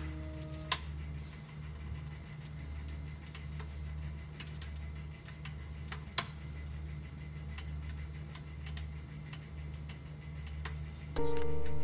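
Steady low hum with faint scattered ticks, and a single sharp click about six seconds in as an electric hob's control knob is turned. Background music plays briefly at the start and comes in loudly near the end.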